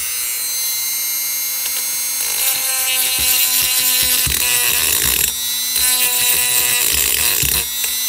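Handheld rotary tool running at high speed with a small grinding stone, porting the aluminium cylinder of an 80cc two-stroke bike engine: a steady high whine, with irregular scraping as the stone bites into the port walls from about two seconds in.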